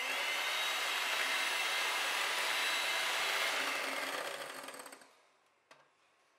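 Electric hand mixer running steadily, its beaters whipping cream into mint frosting. About four seconds in, the whir dies away as the mixer stops. A faint click follows near the end.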